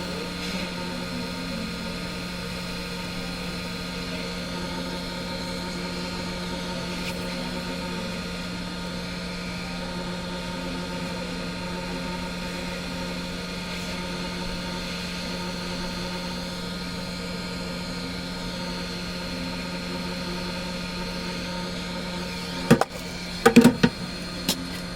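Hot air gun running steadily with a constant fan hum, used to heat and soften the adhesive under a phone screen. Near the end come a few sharp clicks and knocks.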